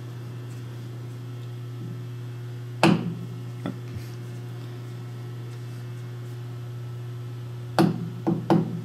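A hammer tapping a lathe's four-jaw chuck body, striking metal to shift the chuck into line with the spindle and true-bore fixture while the runout is read on a dial indicator. One sharp knock about three seconds in, a lighter one just after, then three quick taps near the end, over a steady low hum.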